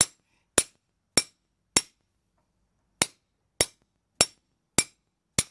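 Small hammer striking a steel strap hinge held over a round steel bar on a sandbag, bending the hinge leaf cold to a radius. Sharp, ringing metal blows, nearly two a second: four, a pause of about a second, then five more.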